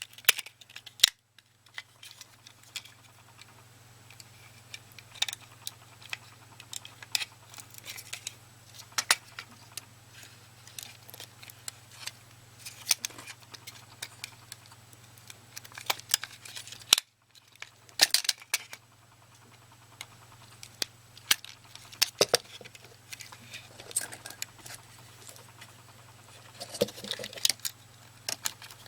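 Irregular sharp clicks and taps of plastic mouse parts being handled and fitted together during reassembly of a Logitech cordless optical mouse, over a steady low hum.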